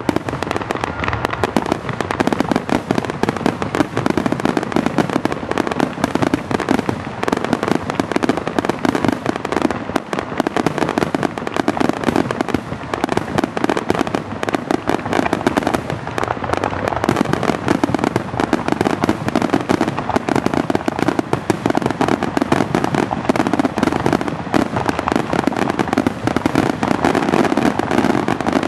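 Aerial fireworks shells bursting in a dense, unbroken barrage of bangs, many overlapping with no pause.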